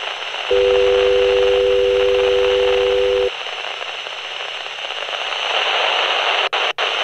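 Loud television static hiss. A steady two-note electronic tone sounds over it from about half a second in to just past three seconds, then cuts off.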